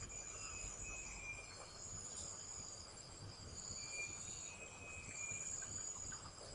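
Insects chirring: several high, steady trills that overlap, each starting and stopping after about half a second to a second.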